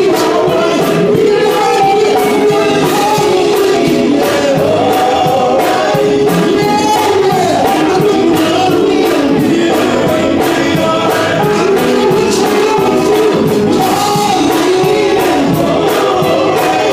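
Live male gospel group singing, a lead voice on microphone with the group's harmony behind him, over a steady beat, amplified through a church sound system.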